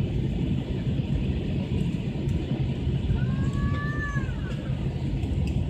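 Steady low rumble inside the cabin of a Boeing 737-800 moving slowly on the ground after landing. A brief faint high whine, bending downward as it ends, comes about three seconds in.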